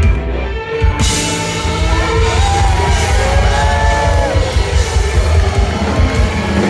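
Live country-rock band playing with drum kit and bass, full and loud, with bending, gliding instrument notes about two to four seconds in.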